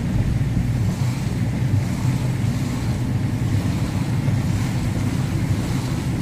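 Steady low rumble of a car in motion heard from inside the cabin, with the hiss of tyres on a wet road.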